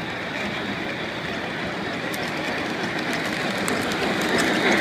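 O-gauge model train, a Southern Pacific Daylight-style steam locomotive hauling passenger cars, rolling along three-rail track. Steady wheel rumble with scattered clicks over the rail joints grows louder as the train approaches and passes close by near the end.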